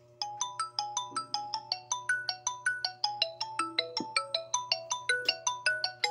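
A bright marimba-style ringtone melody of quick struck notes, about five a second, starting suddenly just after the start.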